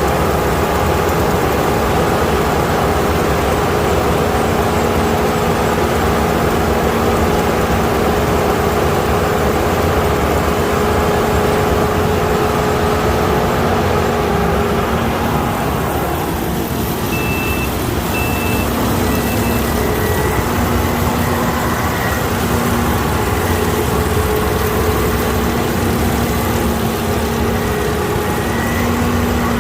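Kukje KC5130 combine harvester running steadily while harvesting rice, a loud continuous machine noise with a steady engine hum whose tone shifts a little about halfway through. Three short high beeps sound about two-thirds of the way in.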